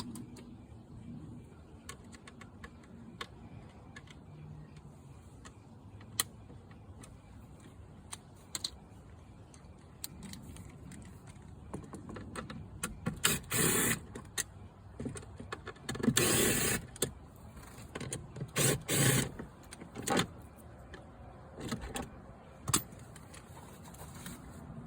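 Cordless drill-driver running in short bursts of about a second, backing out the Phillips screws that hold a glove box latch assembly. Small clicks and rattles of screws and plastic come between the bursts.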